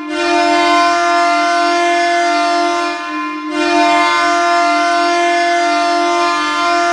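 Hockey arena goal horn sounding for a goal: long, steady blasts of one deep chord-like tone, one starting at the beginning and the next about three and a half seconds in.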